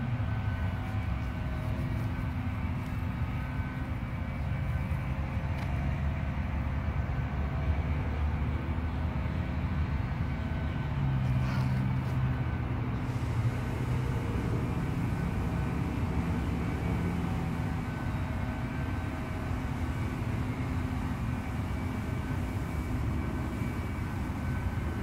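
Steady low rumble of distant vehicle traffic.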